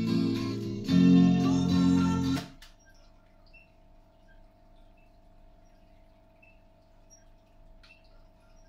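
Guitar music playing through a Samsung SCM-7550 stereo system's speakers during a sound test after restoration, stopping suddenly about two and a half seconds in. A faint steady hum remains afterwards.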